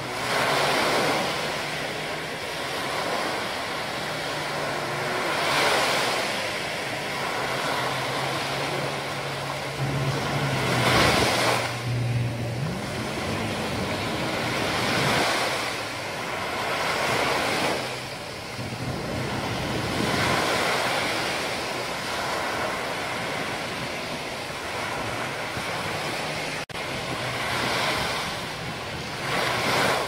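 Small waves breaking and washing up a sandy beach: a steady rush of surf that swells every few seconds as each wave comes in.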